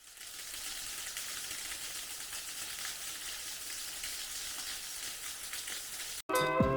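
Steady crackling hiss that cuts off suddenly near the end, where guitar music begins.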